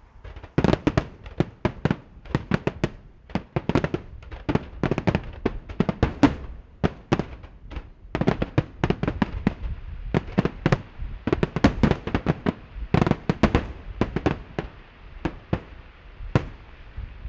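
Fireworks display in a rapid barrage: many shell bursts a second, overlapping bangs, with a steady crackling hiss joining in from about halfway through.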